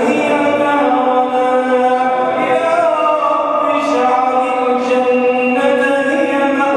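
A man's voice chanting an Islamic supplication (du'a) in Arabic in a melodic, sung style, holding long notes and gliding slowly between pitches.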